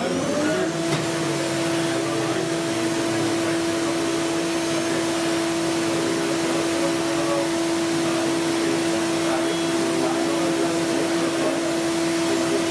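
CNC milling machine spindle with an end mill machining a wooden block: the spindle speeds up in the first half-second, then holds a steady high hum over an even rushing noise.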